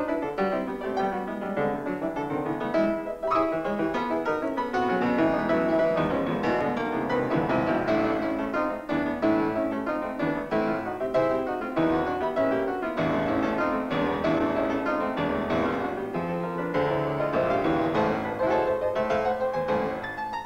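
Piano music with many notes in quick succession.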